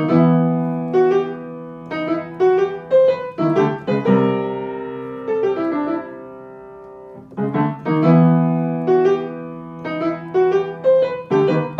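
Background piano music: short phrases of struck notes alternating with held chords that ring and fade away.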